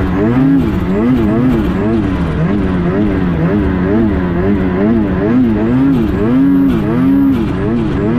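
Snowmobile engine running hard, its pitch swinging up and down about twice a second.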